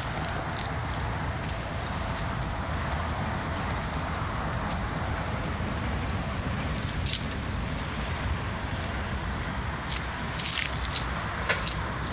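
Heritage electric tram, the 1903 Sydney freight car 24s with newly overhauled motors and running gear, running slowly on its track: a steady low rumble of motors and wheels on rail, with scattered sharp clicks and squeaks in the second half.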